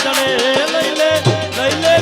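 Instrumental interlude of Gujarati folk devotional music: a wavering melody that bends in pitch over fast, steady percussion ticks, with a low drum beat coming back in about halfway through.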